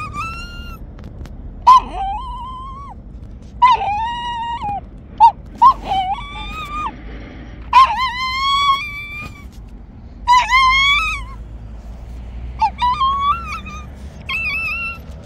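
A tar-coated puppy crying: about ten high-pitched whining yelps, each starting sharply and lasting under a second to about a second, with short pauses between. These are the distress cries of a sick puppy stuck in tar.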